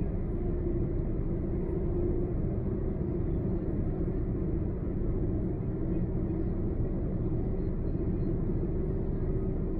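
Steady road noise heard inside a moving car: a low, even rumble of tyres and engine, with a faint steady hum under it.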